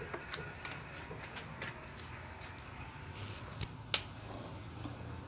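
Faint scattered light clicks and taps over a steady low hum, with one sharper click about four seconds in.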